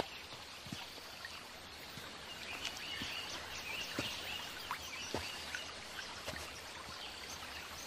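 Outdoor forest ambience: faint bird calls over a steady hiss, with a few scattered sharp clicks.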